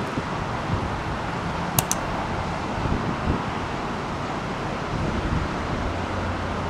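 Steady outdoor rumble of wind on the microphone mixed with a low engine drone, with two short sharp clicks about two seconds in.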